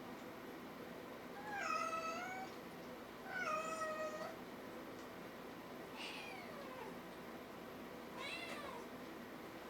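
Kitten meowing four times in high-pitched calls. The first two are the longest and loudest, and the last two are fainter and fall in pitch.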